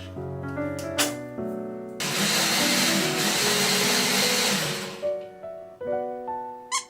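Light piano background music. A loud whirring noise cuts in about two seconds in and runs for roughly three seconds before fading.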